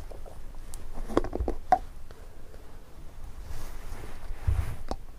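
Plastic screw lid of a large cream jar being twisted off by a gloved hand: a quick run of clicks and creaks about a second in, then softer knocks as the jar and lid are handled near the end.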